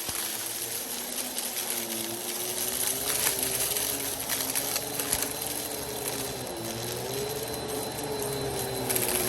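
Vacuum cleaner running with its brushroll spinning, the motor's hum wavering slightly in pitch, with scattered clicks of dry rice, macaroni and beans being picked up.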